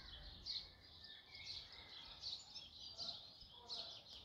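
Small songbirds chirping: a steady series of short, high chirps, about two or three a second, over faint outdoor background noise, with a few lower whistled notes about three seconds in.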